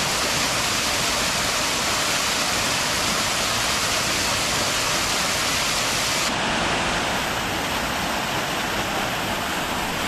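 Waterfall: a steady, loud rush of falling water close by. About six seconds in, the highest part of the hiss softens a little.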